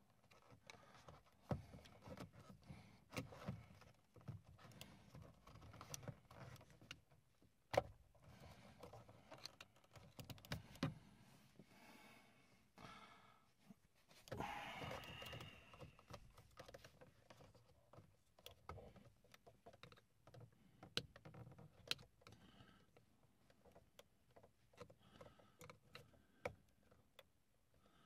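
Faint scattered clicks, taps and light scrapes of a flathead screwdriver and fingers working an old, brittle plastic wiring connector off a headlight switch, with a longer scraping rustle about halfway through.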